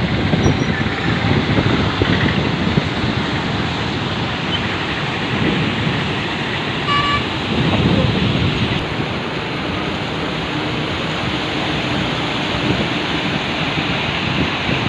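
Rushing floodwater making a loud, steady noise. A short horn-like tone sounds about seven seconds in.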